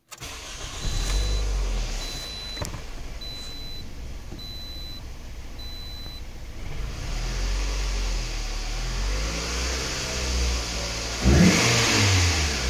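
2008 Scion xB's 2.4-litre four-cylinder engine starting about a second in and idling, with a dashboard chime beeping five times. The engine is revved near the end.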